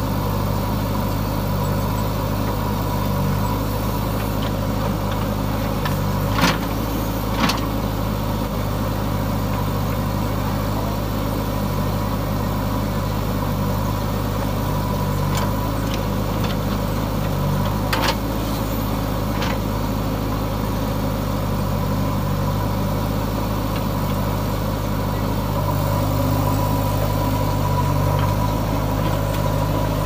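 JCB 3DX backhoe loader's diesel engine running steadily while it loads soil into a tractor trolley, a little louder near the end. A few short sharp knocks stand out over it, twice close together early on and twice more about halfway through.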